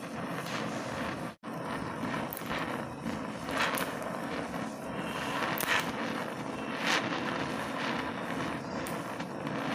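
Oxy-acetylene welding torch flame hissing steadily while heating and tack-welding a copper sheet butt joint, with a few brief louder crackles. The sound cuts out for an instant just over a second in.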